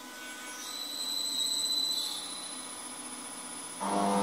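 Pair of large axial smoke exhaust fans starting up. A high whine sounds for about a second and a half, then near the end the fan motors kick in with a sudden, loud, deep hum.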